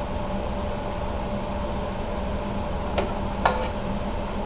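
Two light clinks of kitchen items about three seconds in, the second ringing briefly, over a steady room hum.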